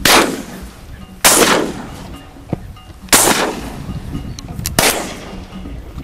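Four shotgun shots, about one and a half to two seconds apart, each a loud crack trailing off in a short echo.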